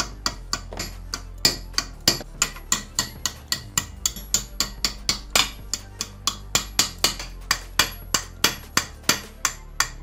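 Rapid light hammer taps on the aluminium gear housing of a Parkside PDFS 1300 A1 stone cutter, about four or five a second, to knock out the remains of its broken ball bearing.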